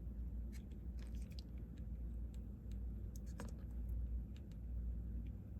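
Scattered light clicks and taps of small resin 3D-printed parts being handled and pressed together in a test fit, over a steady low hum.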